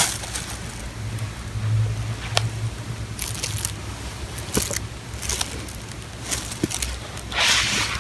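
Domestic cat purring, a low rumble that swells and fades in pulses, with a few sharp clicks and a brief louder burst of noise near the end.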